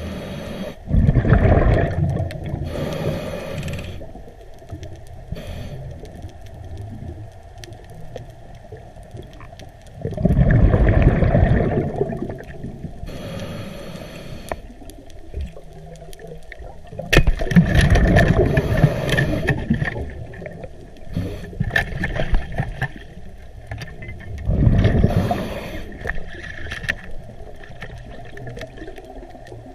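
Underwater diver breathing: a gurgling rush of exhaled air bubbles every seven seconds or so, each lasting two to three seconds, with quieter water noise between breaths.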